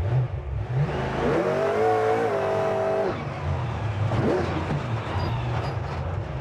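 Grave Digger monster truck's supercharged engine running hard under throttle, with a steady low rumble throughout. About a second in it revs up, holds high for over a second and drops off about three seconds in, then gives a short rev up and back down near the middle.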